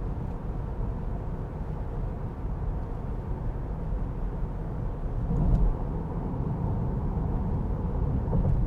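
Cabin road noise in a 2023 Jeep Grand Cherokee L cruising on smooth pavement: a steady low tyre and road rumble. There is a brief louder low thump about five and a half seconds in.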